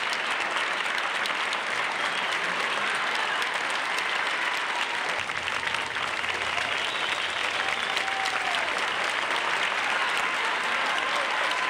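Studio audience applauding steadily, a long ovation welcoming the guest onto the set.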